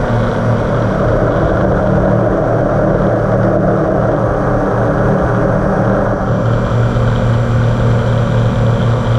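Alien RR5 five-inch FPV mini quadcopter's brushless motors and propellers spinning at a steady speed: an even, unchanging hum over a broad rushing noise.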